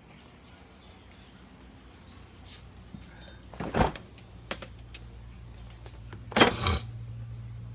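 Refrigerator door pulled open with a short, loud noise just before four seconds in. A longer, louder clatter follows about six and a half seconds in as things inside the fridge are handled. A steady low hum sits underneath the second half.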